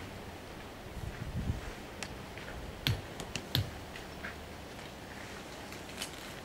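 A few scattered sharp clicks and light knocks, irregularly spaced, from tent pegs being worked into the ground at the base of a tent.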